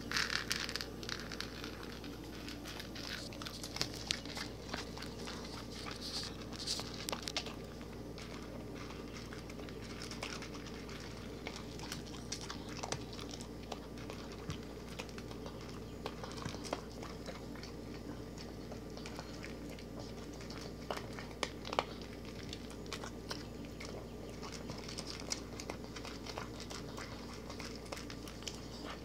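A pug–chihuahua mix (chug) wolfing down dry kibble off a hard floor: a fast, irregular run of crunches and clicks as it bites and chews the pieces.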